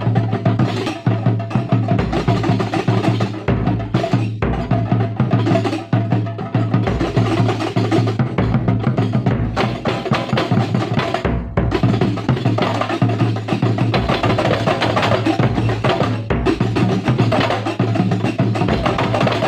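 Kuntulan percussion ensemble playing: fast, dense hand-struck frame drums, with deep bass-drum beats coming and going underneath.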